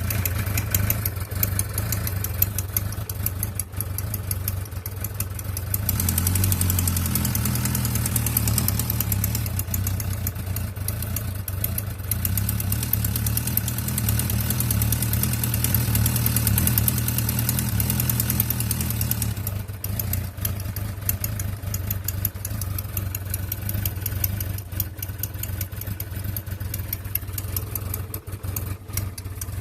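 2004 Suzuki Bandit 1200S's air/oil-cooled inline-four engine idling with a fast, steady ticking clatter over the hum, a strange noise which the owner wonders may be valve noise. The engine runs louder from about six seconds in until about twenty seconds in.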